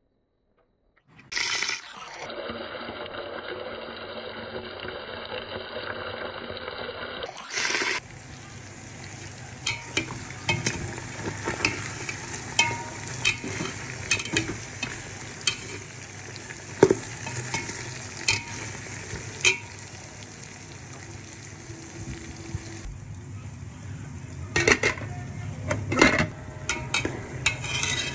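Minced chicken sizzling in a karahi while a spoon stirs it, with frequent irregular clicks and scrapes of the spoon against the pan. It starts after about a second of silence, and its character changes abruptly twice in the first eight seconds.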